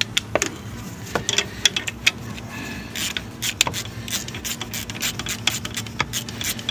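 Socket and ratchet working a bolt on a truck engine: irregular metallic clicks and clinks, several in quick succession at times.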